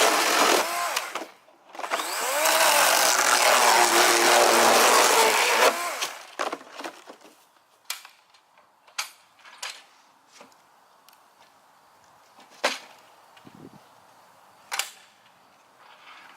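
DeWalt 20V Max brushless battery chainsaw cutting through a hollow core door, its motor pitch bending under load. It drops out briefly about a second and a half in, cuts again, then stops about six seconds in. After that come scattered knocks and clatters.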